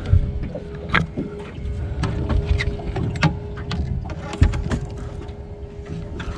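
A large flathead shifting in a mesh landing net on a boat deck: several irregular knocks and rustles of the net and fish against the deck, over a steady low hum and rumble.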